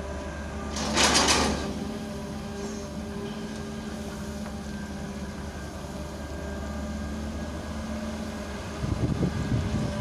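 Long-arm Hitachi excavator's diesel engine running steadily as the boom lifts a loaded bucket, with a brief loud rushing noise about a second in and a rough rumble near the end.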